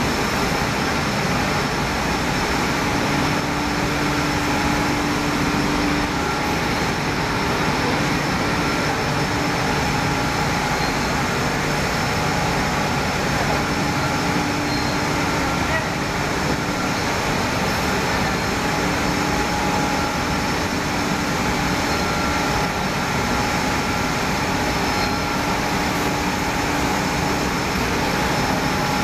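A line of cotton waste recycling machines running, their electric motors and belt and chain drives giving a loud, steady industrial noise with a few faint steady hums on top.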